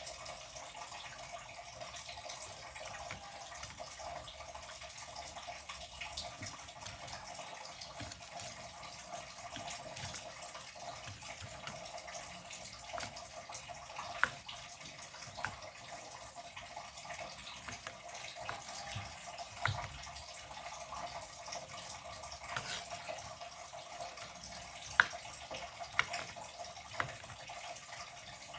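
Water running steadily from a kitchen tap into a sink, with a few sharp clinks, once about halfway through and several near the end.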